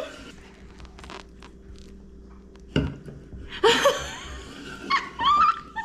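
Room quiet with faint small clicks, then a single sharp knock about three seconds in, followed by a burst of a woman's laughter and a short high-pitched voice near the end.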